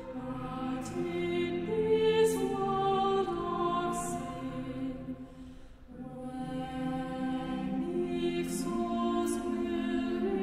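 A choir singing with long held notes. The singing fades to a short break about halfway through, then the next phrase begins.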